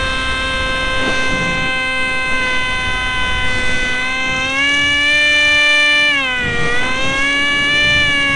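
Electric motor of a small foam radio-control F-22 whining steadily, heard from a camera on board; its pitch rises a little about halfway through, then dips sharply and comes back as the throttle changes. Low wind rush on the airframe underneath.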